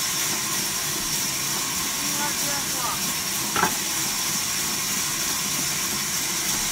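Large vertical band saw mill cutting lengthwise through a log, a steady hiss over a low running rumble, with one brief sharp knock about halfway through.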